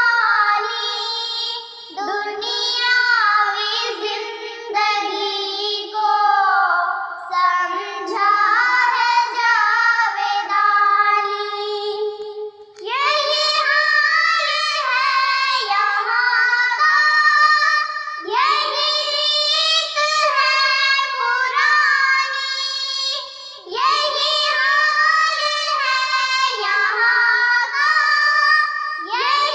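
Two young girls singing an Urdu nazm together, voices alone without instruments, in long melodic phrases with short breaks between them.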